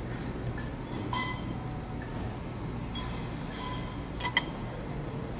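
Metal fork and knife clinking against a plate and bowl while cutting food: a handful of light, ringing clinks, the loudest about a second in. A steady low hum runs underneath.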